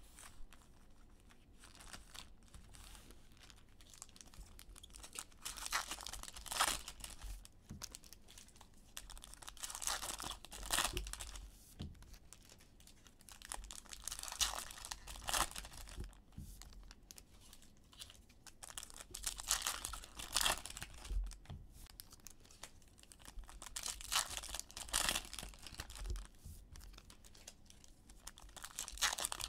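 Foil trading-card packs being torn open by hand, their wrappers crinkling, one after another. The tearing and rustling comes in six bursts about every four to five seconds, with quieter handling between.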